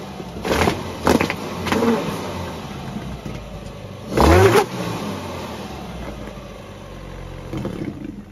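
Geo Tracker's four-cylinder engine blipped in short revs with a bicycle inner tube clamped over its tailpipe, the exhaust blowing through the rubber tube. Three quick revs in the first two seconds and a bigger, longer one about four seconds in, the engine falling back toward idle between them.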